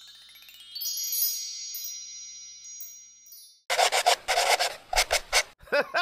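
Outro sound effects: a shimmering chime sweep of bell-like tones that rises and rings out over about three seconds. After a short gap comes a quick run of scratchy strokes, like a pen scribbling a signature.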